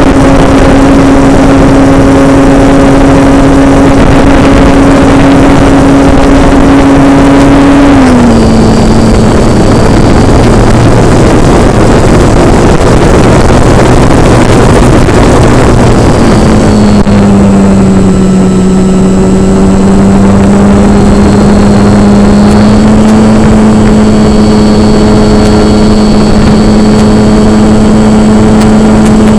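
Propeller motor of a radio-controlled model airplane running with a steady whine over a rush of wind. Its pitch steps down about 8 seconds in, leaving a stretch dominated by wind noise. The whine then returns at a lower pitch and creeps slightly higher near the end.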